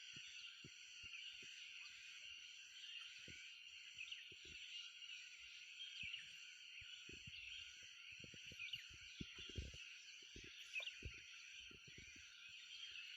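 Forest ambience: a steady high chorus of insects with faint scattered bird chirps, and soft low bumps now and then, more of them in the second half.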